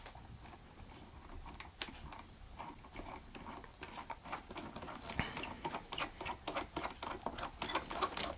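Light clicks and taps of the dent puller's parts being handled and fitted together: a scatter of small knocks, coming thicker in the second half.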